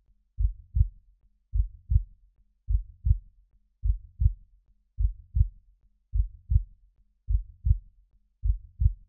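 Heartbeat sound effect: slow, even lub-dub double thumps, low in pitch, about fifty beats a minute.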